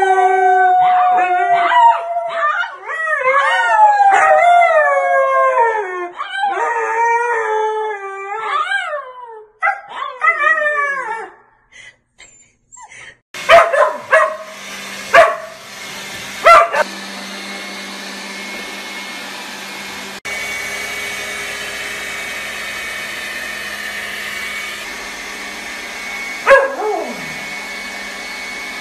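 Siberian huskies, an adult and a puppy, howling in long wavering calls for about eleven seconds. After a short break a robot vacuum cleaner runs with a steady hum and a faint high whine, with a few sharp strikes soon after it starts and one short falling yelp near the end.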